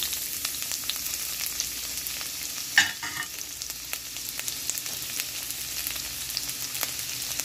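Chopped onion frying in hot oil in a nonstick wok, just poured in: a steady sizzling hiss with fine crackles. A brief louder sound about three seconds in.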